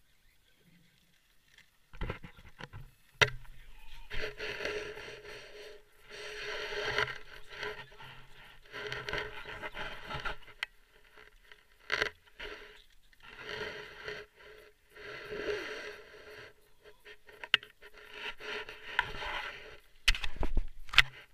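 Fishing reel cranked in repeated bursts of one to two seconds with a steady pitched whirr, as a bent rod is worked against a hooked fish, with a few sharp knocks in between.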